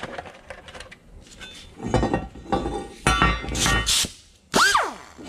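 Clinks and knocks of a cast iron Volvo turbo exhaust manifold and an air die grinder being handled on a metal workbench. Near the end comes a short blip of the die grinder, its pitch rising and then winding down.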